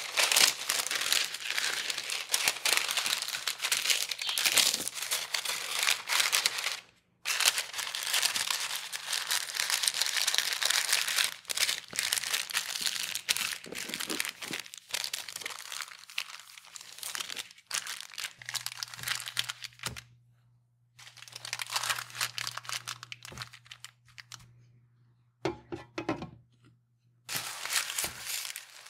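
Brown baking paper crinkling and rustling as it is folded and creased into a packet, in several stretches with short pauses. Near the end, sizzling from food frying in a pan.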